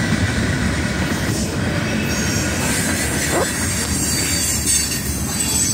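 Norfolk Southern freight cars rolling past close by, a steady, loud rumble of steel wheels on the rails.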